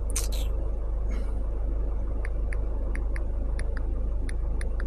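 Smartphone on-screen keyboard clicks as letters are typed: a quick run of about ten short ticks in the second half, over a steady low hum. A short rustling noise comes just after the start.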